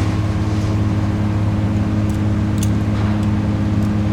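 A large engine idling steadily, an even low hum with no change in speed.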